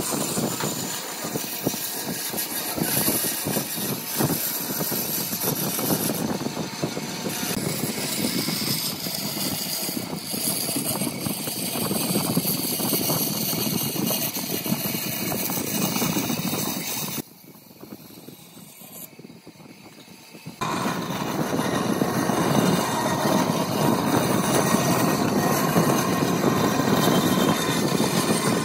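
Band saw running, its blade cutting curves through a pine board. About two-thirds of the way through the sound drops away for some three seconds, then the sawing starts again.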